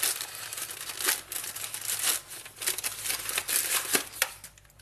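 Grey plastic poly mailer bag crinkling and rustling in irregular crackles as it is pulled open and torn by hand.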